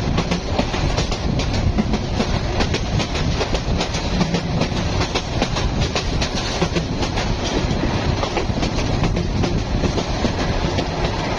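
Train running on the track: a steady rumble with a dense run of clicks from the wheels.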